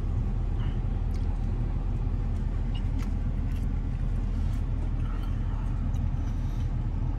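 Steady low rumble of an idling vehicle heard from inside the cab, with a few faint clicks and mouth sounds from chewing a burger.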